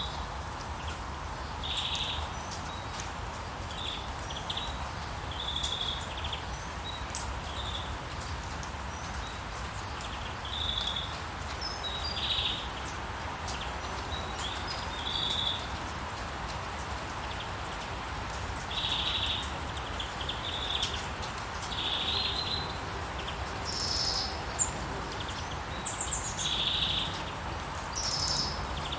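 Steady rain falling, with birds chirping over it in short calls every second or two, some higher-pitched calls near the end, and a low steady rumble underneath.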